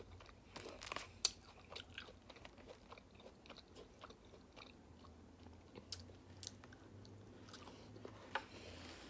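A person chewing food, with soft mouth sounds and scattered small clicks and crunches.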